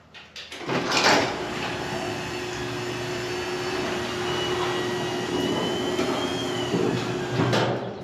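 Electric garage door opener raising a sectional garage door: the motor starts with a clatter about a second in, runs steadily with a low hum and a thin whine, and stops shortly before the end.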